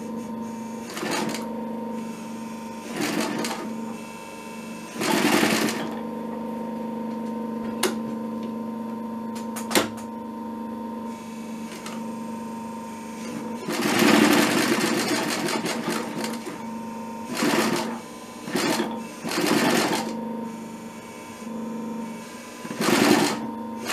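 Pfaff 335 cylinder-bed industrial sewing machine stitching leather in several short runs, the longest about two-thirds of the way through. Its motor hums steadily between runs, and there are two sharp clicks near the middle.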